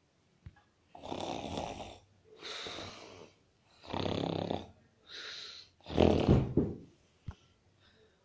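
A person snoring: three rattling snores, each followed by a breathy out-breath. The third snore is the loudest.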